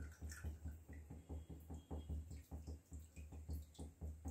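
Faint trickling and dripping of tamarind pulp water through a small steel strainer into a kadhai, over a low rhythmic throb pulsing about four times a second.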